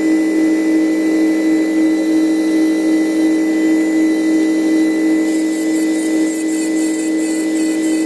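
An engine running steadily at a constant speed, a level hum with an unchanging pitch, with faint light crackling about five seconds in.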